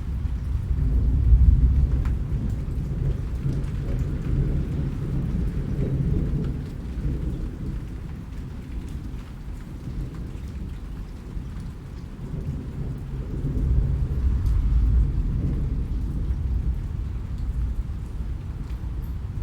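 Steady rain with rolling thunder: deep rumbles swell near the start and again about two-thirds of the way through, over the constant hiss of falling rain.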